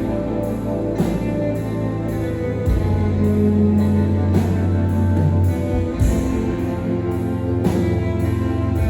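Rock band playing live: sustained guitar chords over bass and drums, with cymbal and drum hits.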